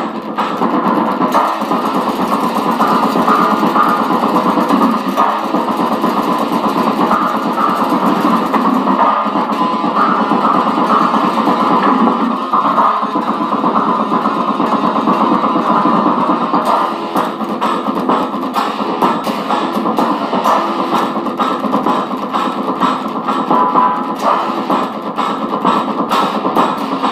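Electric guitar, a gold-top Les Paul-style solid-body, played through a small Fender combo amplifier without a pause: continuous picked and strummed chords and riffs.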